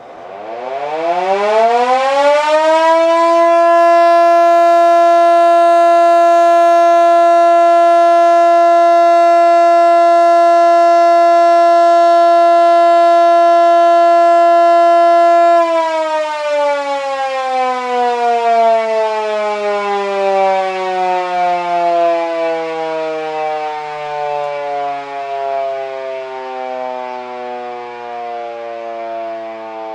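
Motor siren winding up over about three seconds to a steady wail and holding it for about twelve seconds. It then winds down, its pitch falling slowly as the rotor coasts.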